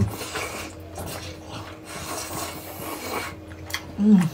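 People slurping and chewing rice noodles in soup, a run of wet slurps and mouth noises, with a short hummed 'mm' near the end.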